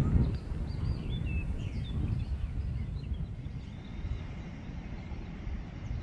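Small birds chirping in the first few seconds over a steady low rumble of wind on the microphone.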